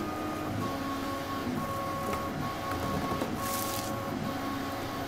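Plastic bag crinkling in the hands, one short rustle about three and a half seconds in, over a steady background of faint repeating tones.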